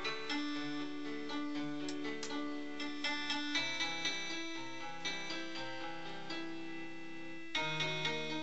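Instrumental background music led by keyboard notes over held low notes, with a fuller, louder passage coming in near the end.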